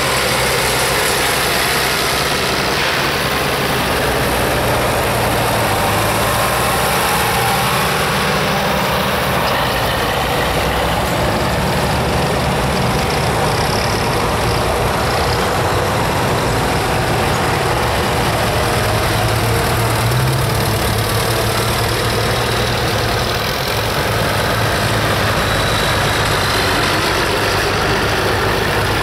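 Engines of antique farm tractors running as the tractors drive past one after another in a line.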